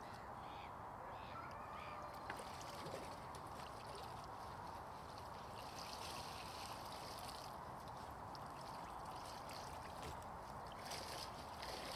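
Water trickling and splashing off a wet carp sling as it is lifted out of the lake margin and shaken out.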